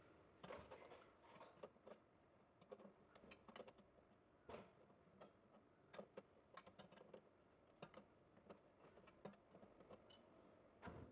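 Faint, irregular metallic clicks and clinks of a wrench being fitted onto and turning a bolt at a motorcycle's rear axle and brake mounting.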